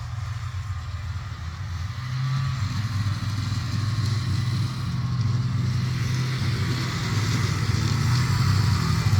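Snowmobile engine running steadily, growing gradually louder.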